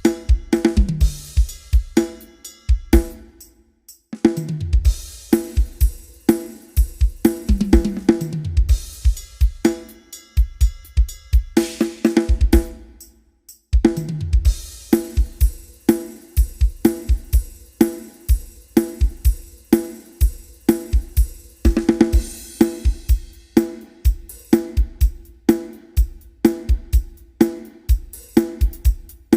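Drum kit playing a steady groove of bass drum and snare under hi-hat and cymbals, broken by several fills that run down the toms from high to low, with two brief stops, one about four seconds in and another near the middle.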